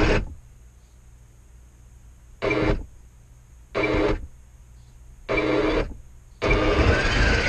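Radio-controlled model tank's drive motors and gearing whirring in short stop-start bursts about every one and a half seconds, with quiet pauses between, as it is driven and turned.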